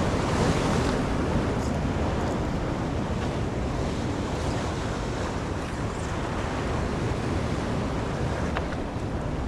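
Steady wind noise on the microphone, with ocean waves washing.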